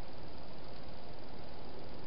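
Steady hiss with no distinct sounds: the background noise of a night-vision garden camera's microphone.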